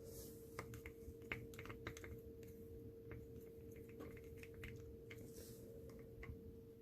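Faint, irregular small clicks and taps, with two brief hisses, over a steady low hum.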